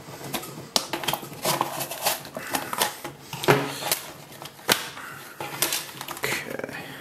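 Stiff plastic blister packaging being wrestled and torn open by hand: irregular crackles, snaps and clicks of the plastic.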